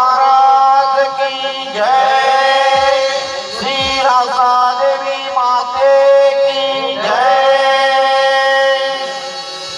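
Male voice singing long, drawn-out notes of a Marathi naman song, four held notes, each sliding up into its pitch, over a steady lower accompanying tone.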